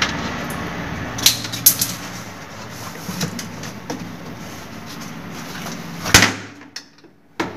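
Hard white plastic toilet-fitting parts being handled and pulled apart, giving a few light clicks and knocks, with a louder knock about six seconds in. A steady low hum runs underneath.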